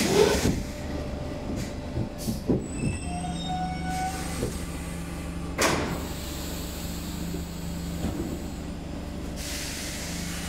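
Stockholm Metro C6 car heard from inside as it comes into a station: a steady rumble of the running gear, with faint wheel or brake squeals a few seconds in and a steady low hum. A single sharp knock comes about six seconds in.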